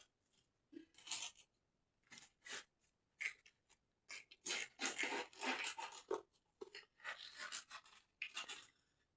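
A blunt kitchen knife slicing through cabbage on a board. The cuts are irregular, crunchy and scraping, sparse at first and coming thicker from about halfway through.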